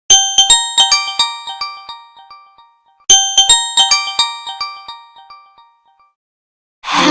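Huawei Ascend Y330 stock ringtone: a short melody of bell-like chime notes, played twice with each phrase ringing out and dying away. A different ringtone with steady held tones starts near the end.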